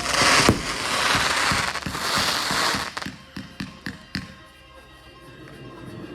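Fireworks going off: a dense crackling hiss for about three seconds, then a few scattered sharp pops that die away.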